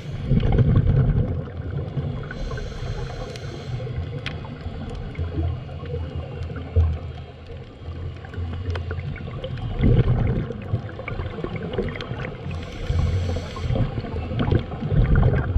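Uneven low rumble of wind on the microphone over moving water, as from a boat, with two short bursts of hiss.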